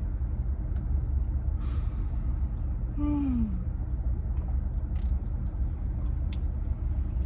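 Close-up chewing of pizza, with faint crunches and breaths and a short falling "mm" hum about three seconds in, over the steady low rumble of a car interior.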